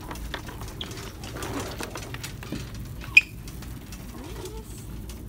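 Shopping cart rattling as it is pushed along a hard store floor, a steady run of small clatters, with one sharp click about three seconds in.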